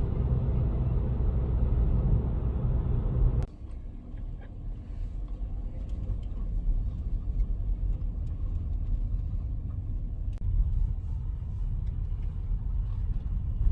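Low, steady rumble like a moving car's road and engine noise. About three and a half seconds in it cuts abruptly to a quieter rumble with faint scattered clicks.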